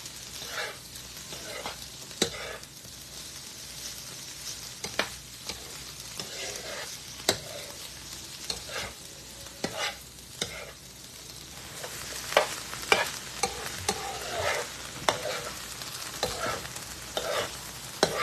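Riced cauliflower with onion and carrots sizzling in a pan on high heat while it is stirred, a utensil scraping and clicking against the pan. The clicks come more often in the second half.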